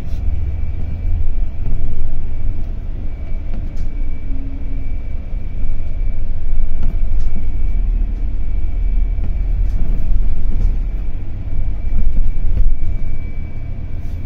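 Intercity coach bus running: a steady low rumble with a faint, steady high whine above it.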